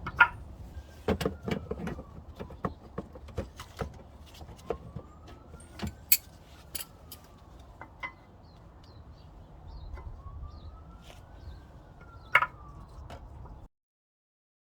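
Irregular metallic clicks and clinks as brake pads are worked out of a Subaru WRX STI's rear Brembo caliper. A faint siren slowly wails up and down in the background. The sound cuts off suddenly near the end.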